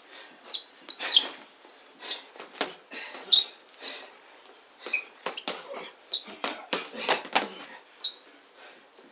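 Boxing gloves slapping and feet scuffing on a tiled floor in a sparring bout: irregular sharp hits, at times several a second, the loudest about a second in and just past three seconds.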